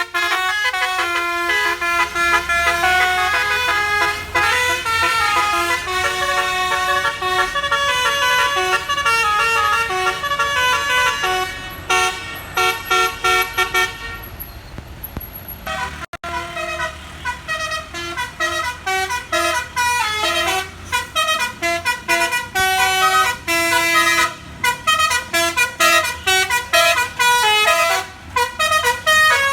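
Bus 'basuri' telolet horns playing a melody as a run of stepped, held notes. After a cut about 16 seconds in, another tune follows in short, quick notes.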